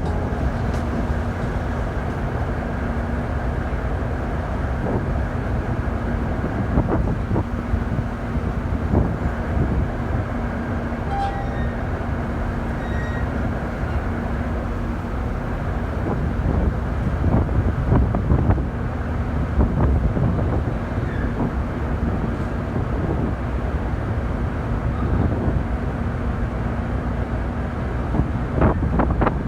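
A vehicle in motion: a steady low rumble with a faint steady hum and scattered light knocks.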